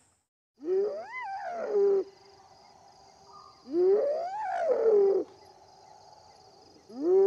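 Hyena whooping: three long calls, each sliding up in pitch and back down, about three seconds apart, over a steady high insect drone.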